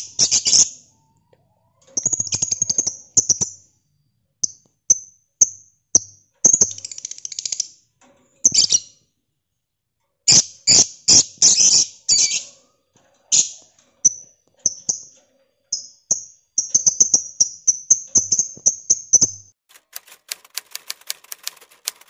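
Caged lovebirds making shrill, high, chattering calls in short bursts, then a long rapid run of calls near the end: the lovebird's 'ngekek' chatter. In the last two seconds the calls give way to a fast, even ticking.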